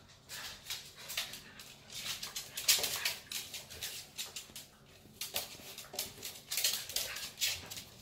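Two dogs, a black dachshund and a shaggy tan dog, play-fighting on a hard floor: quick scuffles and short dog noises in a dense run, loudest a little before the middle and again near the end.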